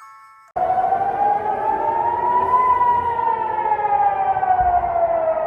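Israeli civil-defence siren that starts suddenly about half a second in, after a few faint chime notes, and wails slowly up and then down in pitch.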